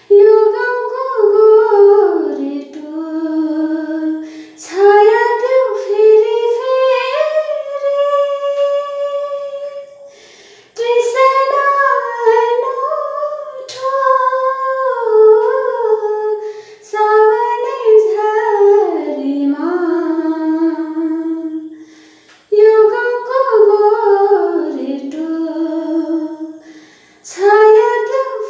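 A woman singing solo with no accompaniment, in long held phrases that slide up and down in pitch, breaking briefly for breath three times.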